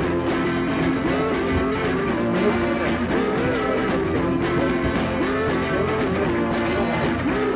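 Background music: a song with a wavering melody line over a steady accompaniment.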